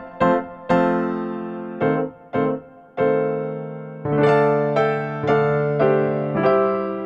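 Background music on piano: single notes struck one after another, each ringing and fading, then fuller chords held from about halfway through.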